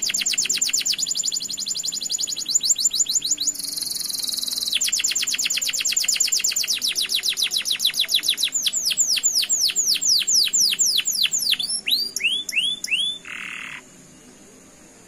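Domestic canary singing a long rolling trill of rapid repeated high notes, with a short buzzy passage about four seconds in; the notes slow into a few separate falling notes near the end and the song stops.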